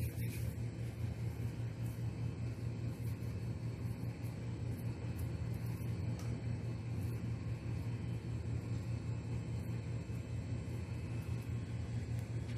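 A steady low rumble with no change in level or pitch; the hands pressing dough onto the pot's rim add nothing that stands out above it.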